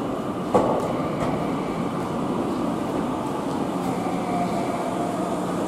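Keio 1000-series electric commuter train rolling slowly into a station platform: a steady rumble of wheels and running gear, with one sharp click about half a second in. A thin steady tone comes in near the end as the train slows.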